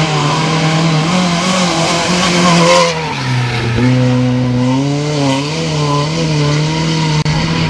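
Off-road rally cars' engines running hard on dirt climbs, the pitch rising and falling as the revs change. The engine note changes about three seconds in as a different car takes over.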